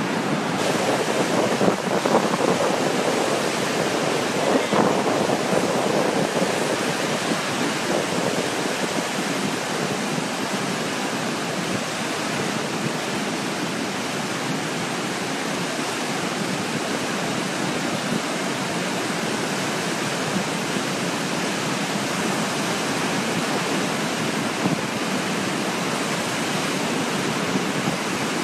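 Rhône floodwater churning out below the Vallabrègues dam gates: a steady, heavy rushing of turbulent water, slightly stronger in the first few seconds.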